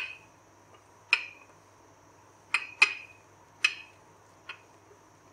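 Wooden rolling pin knocking against a hard worktop while puff pastry dough is rolled out: six sharp, short clacks at uneven intervals of about a second, each with a brief ring.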